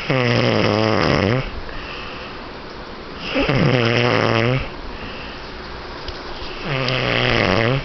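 A person snoring loudly: three long snores, each about a second to a second and a half, coming about three and a half seconds apart with quieter breathing between them.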